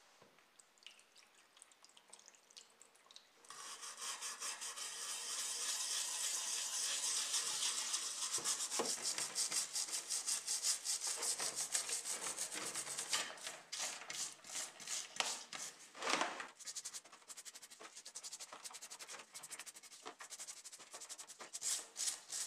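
Stiff brush scrubbing a wet die-cast model car body, bristles rasping on the metal. The scrubbing starts about three and a half seconds in as a fast, steady back-and-forth, then turns into slower, separate strokes.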